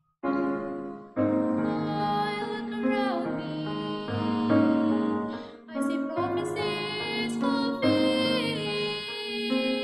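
Mixed choir singing with piano accompaniment; the music begins right after a brief gap at the start and dips briefly about six seconds in.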